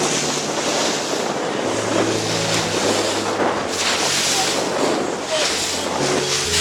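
Steady rushing wind and water noise aboard a moving boat, with a low engine hum underneath that shifts in pitch a few times.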